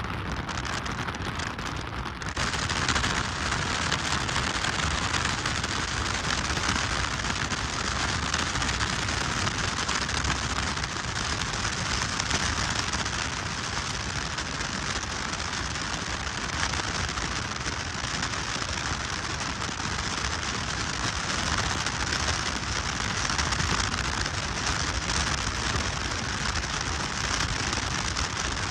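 Steady rushing wind and road noise of a moving car, heard from inside the car, with no tones or voices; the hiss turns brighter and a little louder about two seconds in.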